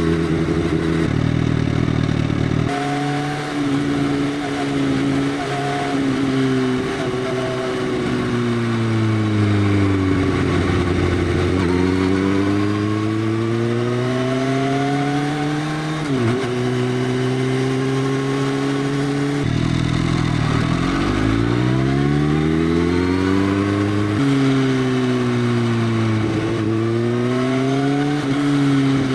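Motorcycle engine running through an Arrow full-system exhaust with the dB killer removed. The pitch drops and climbs back several times as the revs fall and pick up again.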